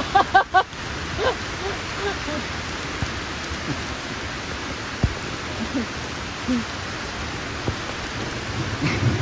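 Steady rain falling, an even hiss throughout. About half a second in there are three quick pitched notes, and later two short low thumps.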